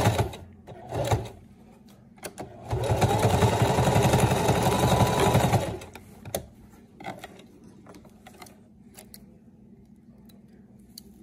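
Domestic sewing machine stitching stretch fabric and trim in short runs. It stops just after the start, gives a brief burst about a second in, then runs steadily for about three seconds before stopping, followed by a few light clicks.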